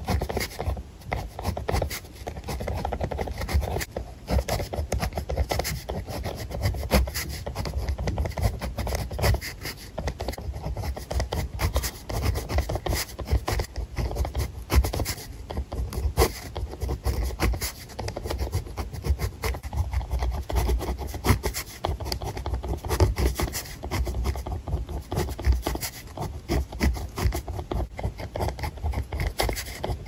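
Pen nib scratching across textured paper, writing Chinese characters by hand: a continuous, irregular run of short scratchy strokes with brief pauses between them.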